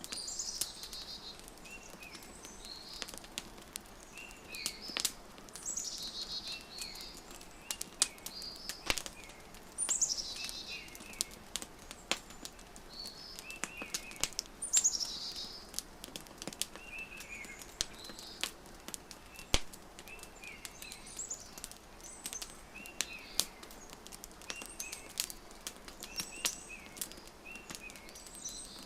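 Wood fire crackling with frequent sharp pops, with birds calling over it: a high call that sweeps downward every four or five seconds, and short chirps between.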